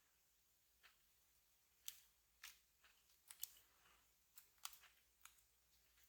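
Near silence with a scattering of faint, light clicks and ticks, about eight in all, some in quick pairs.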